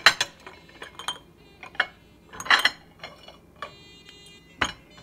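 Small glass yogurt jars knocking against each other and the plate as they are handled. About half a dozen sharp clinks, some with a short glassy ring, with a cluster about two and a half seconds in and another loud clink near the end.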